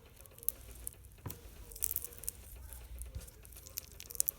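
Handling noise from small slimes being held and shown: scattered soft clicks and crackles, with a quick run of sharper ticks near the end.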